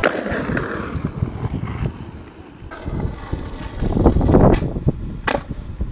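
Wind buffeting the microphone over the rolling rumble of skateboard wheels on concrete, with a few sharp clacks of the board, the loudest near the end.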